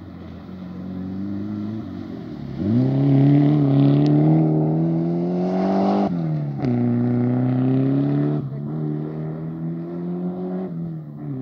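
Mitsubishi Lancer Evo IV's turbocharged four-cylinder engine revving hard under acceleration. About two and a half seconds in, it gets louder and climbs in pitch for several seconds, then falls sharply about six seconds in. It climbs again, falls again near eight and a half seconds, and holds steadier near the end.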